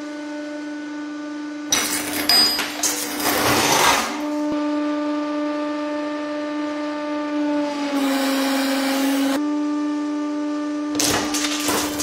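Hydraulic press running with a steady droning hum, broken three times by loud noisy bursts as objects are crushed under the ram: from about 2 to 4 seconds in, again around 8 to 9 seconds, and near the end. During the middle burst the hum sags slightly in pitch.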